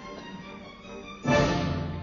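Orchestral background music with bowed strings. A little over a second in comes a sudden loud hit that fades away.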